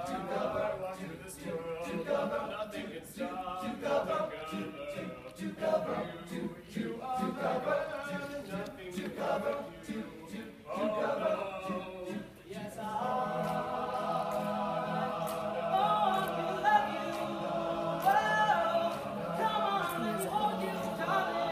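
All-male a cappella choir singing: short rhythmic backing syllables for the first half, then sustained held chords, with one higher voice bending in pitch above them later on.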